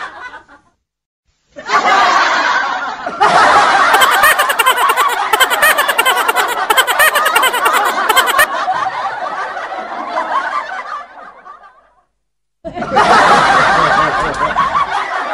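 People laughing, snickering and chuckling, in stretches broken by short silences about a second in and about twelve seconds in.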